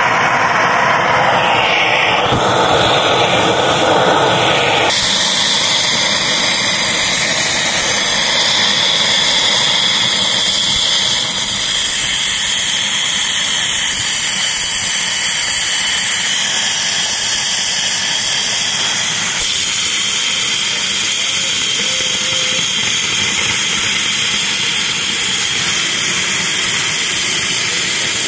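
Oxy-fuel cutting torch hissing steadily as its flame cuts through a steel beam. The sound is louder and fuller for about the first five seconds, then settles to an even hiss.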